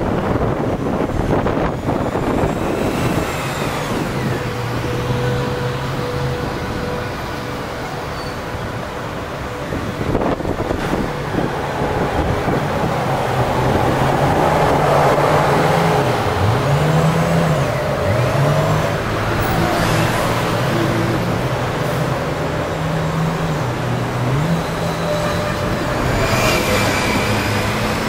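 Busy city road traffic: taxis and double-decker buses driving past, their engines rising and falling in pitch as they pull away, with a bus passing close by near the end.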